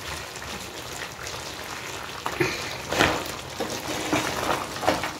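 Sugar syrup bubbling in a frying pan as fried shakkarpare pieces are stirred through it with a wooden spatula to coat them, with a few scrapes and knocks of the spatula in the second half.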